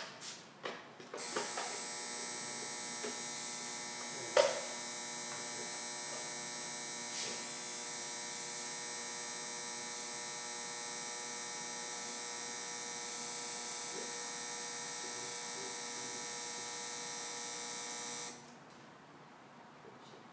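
Dental panoramic X-ray unit running a scan as its arm rotates around the head: a steady electric hum with a high whine that starts about a second in and cuts off sharply near the end, with one short knock about four seconds in.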